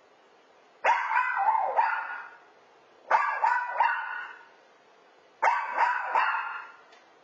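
Puppy barking in three volleys of about three quick, high yaps each, with a pause of roughly a second between volleys.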